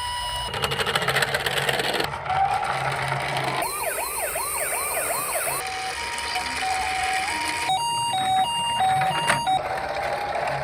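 Emergency-vehicle sirens in quick succession: a fast rising-and-falling yelp for about two seconds, then a two-tone siren alternating between a high and a low note, and a slow wail near the end.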